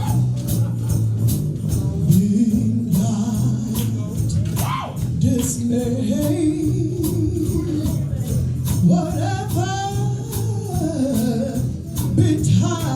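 Gospel music with a band and tambourine keeping a steady beat under a solo voice singing long, sliding, wavering melodic lines.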